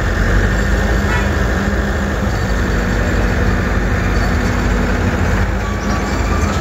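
Escorts F-17 crane's diesel engine running steadily with a low, even hum.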